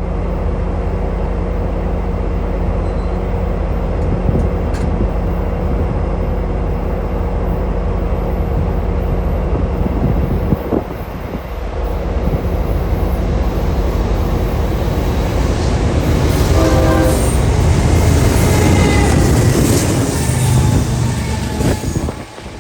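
CN freight train's diesel locomotives running past, with a steady low engine drone. The noise of wheels and rolling cars builds from about 15 seconds in, and a brief horn note sounds around 17 seconds.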